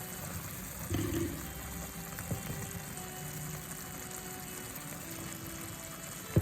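Pasta in a watery tomato sauce simmering in a pan, a faint steady liquid bubbling, with a soft knock about a second in. Quiet background music plays over it.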